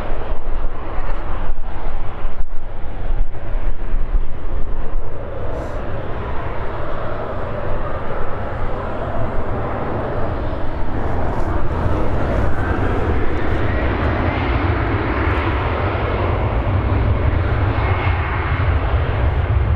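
Embraer 195's twin CF34 turbofan engines spooling up for the take-off roll: a rising whine climbs in pitch from about ten seconds in and then holds high, over a steady low rumble.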